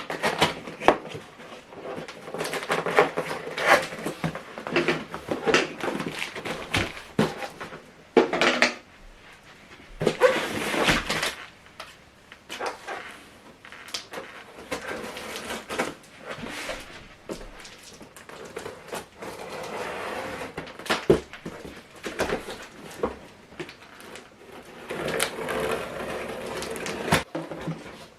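A cardboard box being opened and unpacked by hand: irregular knocks, bumps and scrapes with stretches of rustling packaging.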